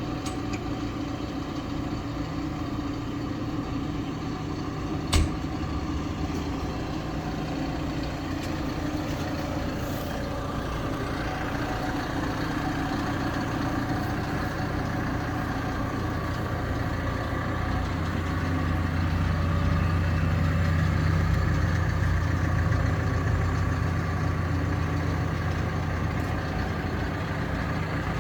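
Hidromek HMK 102B Supra backhoe loader's diesel engine running steadily, with one sharp knock about five seconds in. About two-thirds of the way through, the engine note grows louder, with a stronger low drone.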